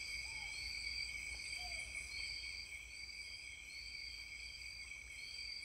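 A steady chorus of insects: several high-pitched trills at different pitches holding on together, with a short swelling note repeating above them about every three-quarters of a second.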